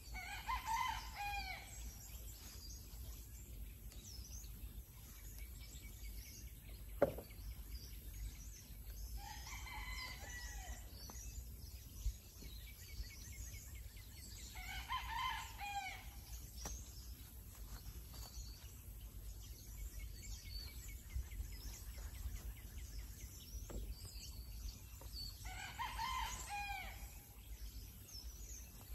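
A rooster crowing four times, several seconds apart, each crow lasting about a second and a half. There is a single sharp click about seven seconds in.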